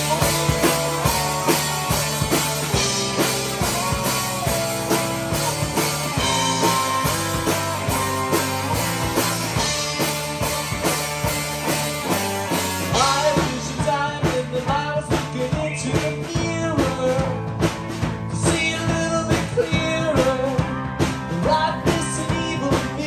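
Live rock band playing: electric guitars over a Ludwig drum kit keeping a steady beat. About halfway through, bending higher notes come forward over the rhythm.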